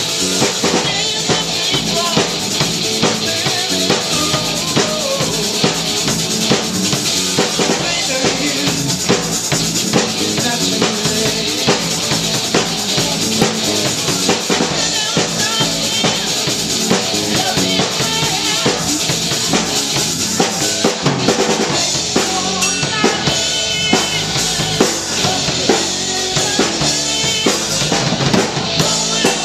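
Live rock band playing: electric guitar, bass guitar and drum kit with steady bass drum and snare hits.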